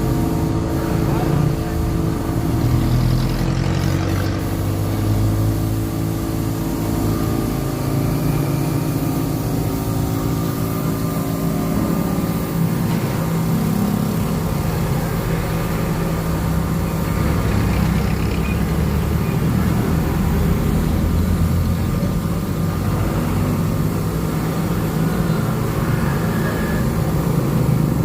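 A motor running steadily with a constant hum, with people talking over it.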